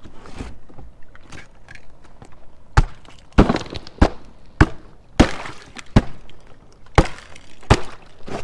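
A canoe paddle pounded down onto river shelf ice: a series of about eight sharp knocks and cracks, starting about three seconds in and coming every half-second to second, as the ice is tested and broken until it will hold a person's weight.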